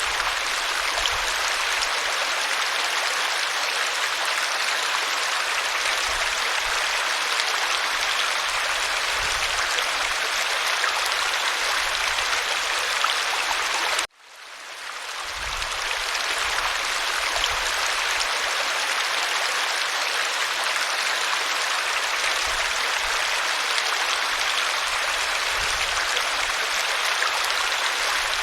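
Steady rush of a waterfall, even water noise with no pauses. About halfway through it cuts out abruptly and swells back up over a second or two.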